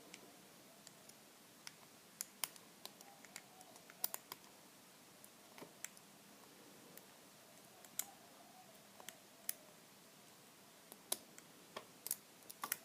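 Faint, irregular clicks and ticks of a lock pick and tension wrench working the pins inside an all-brass American Lock round padlock, during picking.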